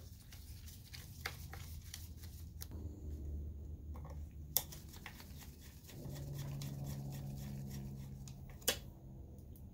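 Small screws being driven with a hand screwdriver into a projector's metal chassis: light scattered metallic clicks and ticks, with two sharper clicks about four and a half and eight and a half seconds in. A low steady hum sounds for about three seconds, from about six seconds in.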